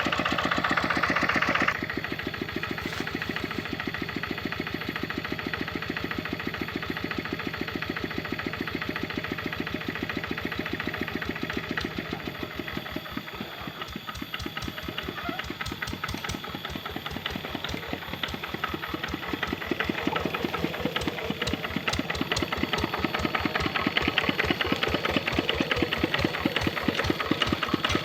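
Kubota RD65 single-cylinder diesel engine of a hand tractor idling with a fast, even firing beat. It drops to a quieter idle about two seconds in and grows louder again in the second half.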